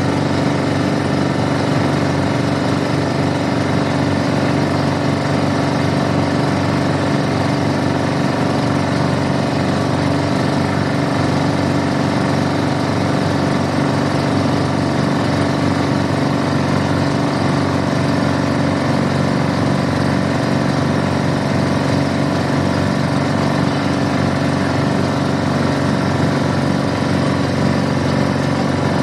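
Tour boat's engine running steadily at a constant speed.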